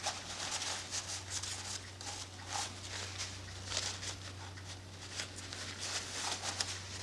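Paper rustling and rubbing in irregular soft strokes as hands press a glued paper hinge strip onto cuckoo clock bellows pieces, over a steady low hum.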